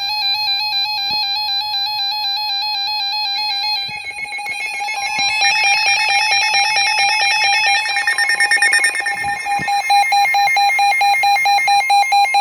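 NOAA weather radios sounding a warning alert with a loud warbling alarm tone. About four to five seconds in, rapid pulsing beeps and the steady 1050 Hz weather-radio warning tone join it.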